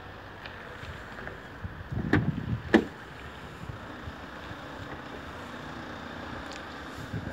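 BMW X6 driver's door being opened: the handle pulled and the latch releasing, two sharp clunks about half a second apart, the second the louder.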